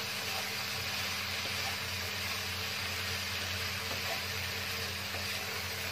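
Shredded carrot and jicama filling sizzling steadily in a frying pan while being stir-fried with a wooden spatula, its water cooking off, over a steady low hum.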